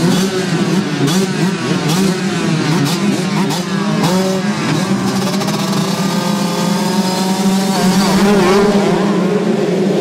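A full start gate of two-stroke motocross bikes, 125s and 65 cc minis, revving together, many engines rising and falling in pitch at once. Near the end the sound swells as the pack launches off the line.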